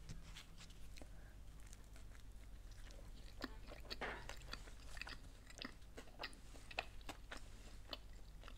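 Close-miked biting and chewing of a toasted quesadilla: faint, irregular crackles and small mouth clicks.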